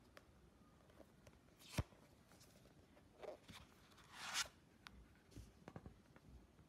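Faint handling of packaging: scattered light clicks, a sharp tap just under two seconds in, and a short rustle about four seconds in.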